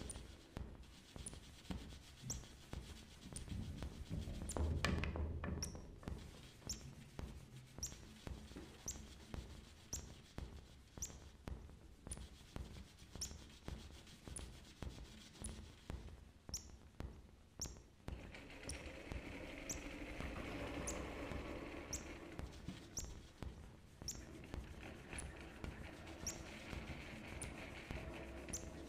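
Sparse, quiet experimental music from drums and electronics. Faint irregular clicks run under a short high chirp that repeats about once a second, and a hissing noise swells in about two-thirds of the way through.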